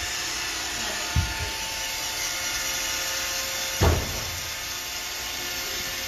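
Roomba robot vacuum running: a steady whirring hum with brush hiss, broken by two short dull knocks, one about a second in and one near four seconds.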